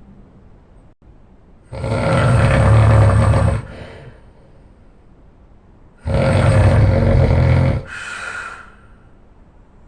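A man snoring very loudly: two long, deep snores about four seconds apart, each lasting nearly two seconds and trailing into a shorter, quieter breath.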